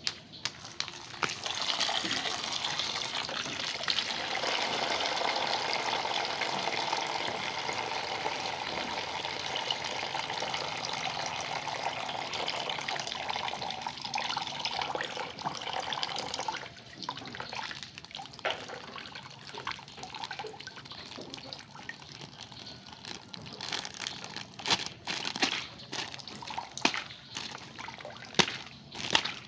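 Water running from a tap in a steady stream for about fifteen seconds, then stopping, followed by irregular sloshing, splashing and small clicks as things are handled in the water.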